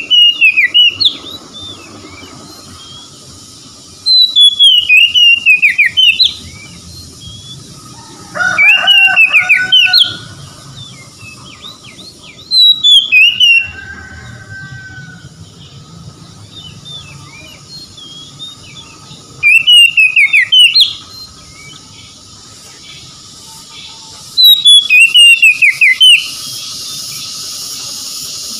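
Oriental magpie-robin singing: six loud phrases of rapid whistled notes that slide up and down, each a second or two long and a few seconds apart.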